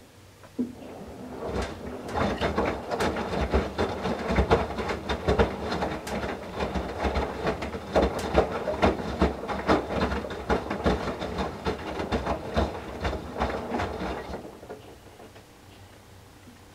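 Whirlpool Duet WFW97HEDC direct-drive front-loading washer in its main wash: the drum turns and tumbles a load of wet towels, with sloshing water and a dense run of clatters and splashes. It starts suddenly about half a second in and dies away near the end, as the drum stops between tumble strokes.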